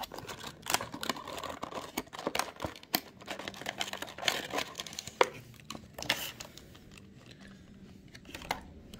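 Stiff clear plastic blister packaging crackling and clicking as it is flexed and pried open by hand. The crackles are dense for about six seconds, then thin out to a few scattered clicks.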